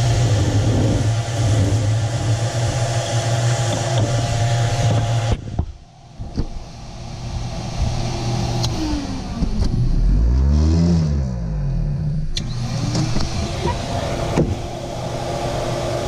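Vacuum plate seeder running: its electric vibrator buzzes with a steady low hum over the rushing of the vacuum for about five seconds, then everything cuts off suddenly. The machine noise comes back with a brief rising-and-falling whine near the middle and runs on to the end.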